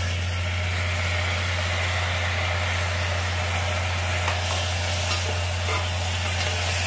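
Soaked chana dal sizzling as it fries in hot oil in a small pressure cooker, a metal spatula scraping and tapping against the pot now and then as it is stirred. A steady low hum runs underneath.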